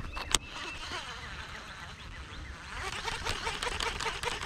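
A chorus of many overlapping animal calls that thickens and grows louder over the second half. A few short high chirps and one sharp click come right at the start.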